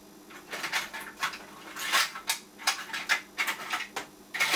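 Small hard parts handled by hand on a workbench: an irregular string of clicks, light rattles and short rustles, loudest about two seconds in and again near the end.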